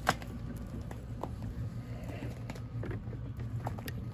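Kioti CK2610 tractor's diesel engine running steadily at idle, a low hum, with footsteps and scattered sharp clicks and knocks over it; the loudest click comes just at the start.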